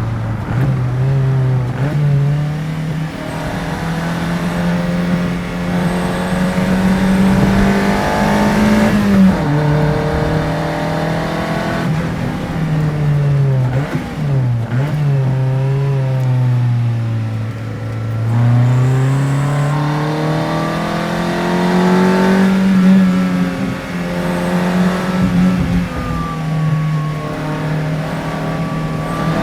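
Toyota Corolla FX-GT's 4A-GE twin-cam 16-valve four-cylinder engine under way, revs climbing through the gears and dropping sharply at each shift. A little past halfway the revs fall steadily as the car slows, then climb again.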